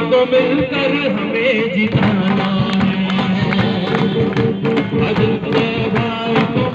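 A song: a singing voice over instruments with a steady drum beat.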